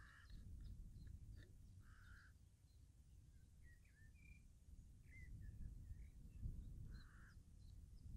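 Faint harsh bird calls: three single calls a few seconds apart, with a few thin higher chirps between them, over a steady low rumble.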